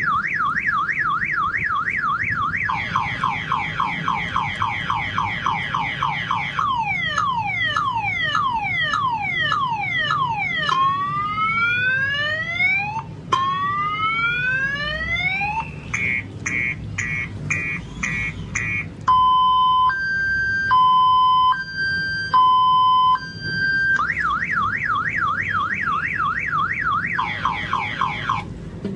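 A person mimicking a multi-tone car alarm cycle. It runs through a fast warbling wail, slower sweeps, falling chirps, rising whoops, rapid beeps and a two-tone high-low alternation, and the fast warble comes back near the end.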